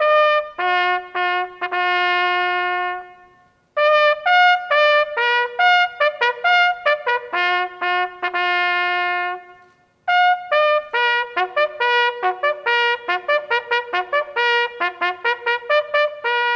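A solo bugle sounds a ceremonial military call of short, brisk notes in three phrases, with a longer note held near the end.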